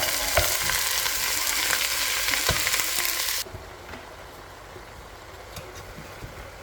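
Pork browning in hot oil in a pan, sizzling loudly with a few knocks from stirring. The sizzle cuts off suddenly about three and a half seconds in, leaving a much quieter hiss.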